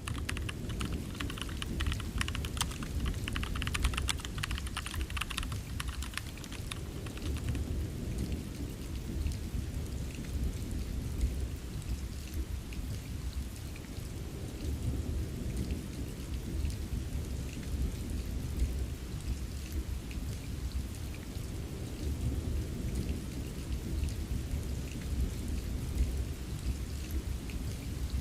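Steady rain ambience with a deep low rumble underneath. Rapid computer keyboard typing clicks over it for the first several seconds, stopping about a quarter of the way in.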